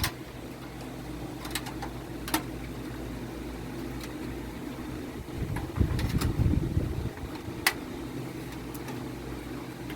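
Scattered sharp clicks and knocks of computer parts being handled and fitted during assembly, with a stretch of rustling handling noise about six seconds in, over a steady low hum.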